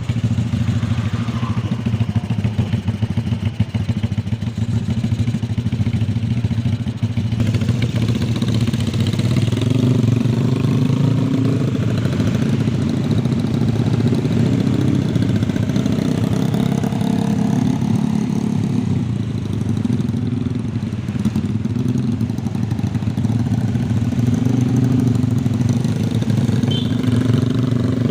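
Motorcycle engine running steadily, its pitch rising and falling a little as the throttle changes.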